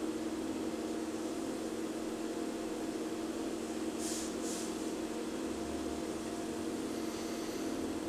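Steady mechanical hum at a constant level, with two brief high hissing swishes about four seconds in.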